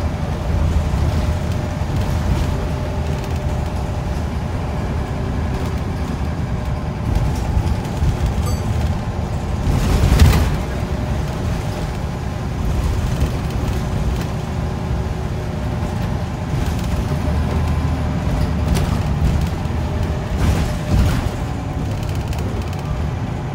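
Interior ride noise of a Scania L94UB single-deck bus on the move: a steady low diesel engine and road rumble with a hum in it. About ten seconds in there is a brief, louder burst of noise, with smaller ones near the end.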